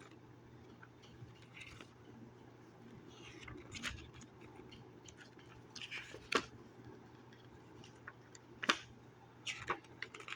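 Paper leaflets and packaging being handled: intermittent rustling and crinkling, with a few sharper crackles.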